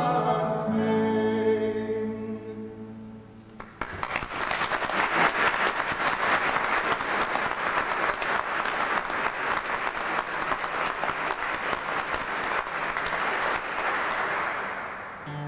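A classical song for male voice and classical guitar ends on a held final note that fades away. About four seconds in, audience applause breaks out, holds steady, and dies away near the end.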